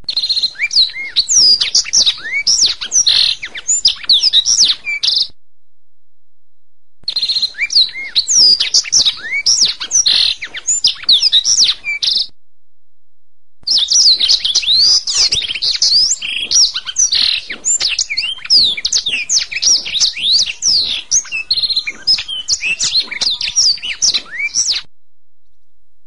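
Domestic canary singing in three long bursts of rapid, high warbling notes and trills, separated by two silent pauses of one to two seconds.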